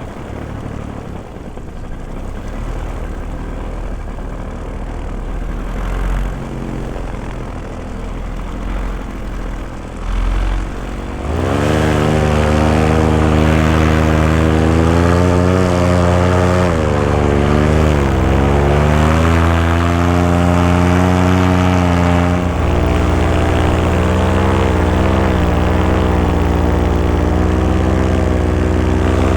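Paramotor engine and propeller running low at first, then opened up sharply about a third of the way in to a loud, steady drone whose pitch wavers up and down. A low rumble from the high wind buffets the microphone.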